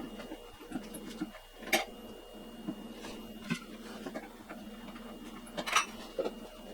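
Handling noises: three sharp clicks or taps and a few smaller ticks and rustles, over a faint steady hum.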